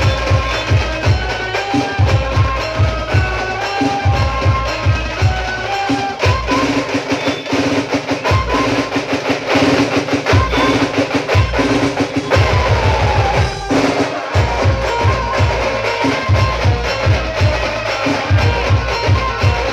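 Loud music with a fast, heavy bass-drum beat and other percussion under a melody, played through a DJ sound system; the bass drops out briefly twice.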